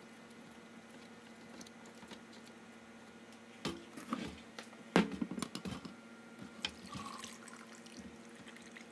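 Red water-cooling coolant dripping from an opened drain port into a glass bowl, with a few sharp clicks and knocks as the fitting and tubing are handled, the loudest about five seconds in.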